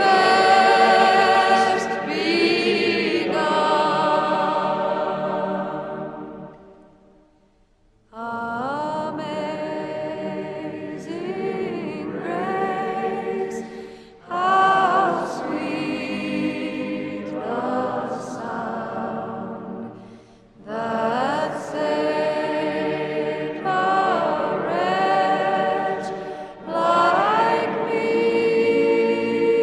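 Choir singing as background music. The singing fades out about seven seconds in, then a new passage starts abruptly about a second later and goes on in phrases of a few seconds each.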